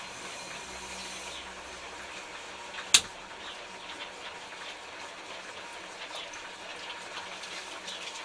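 Hands working wet clay on a potter's wheel: a steady wet hiss with faint small wet ticks, and one sharp knock about three seconds in.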